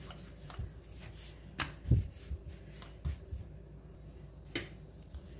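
Wooden rolling pin knocking and clicking against a marble rolling board as semolina dough is rolled out: a scatter of sharp clicks, the loudest about two seconds in and again about four and a half seconds in.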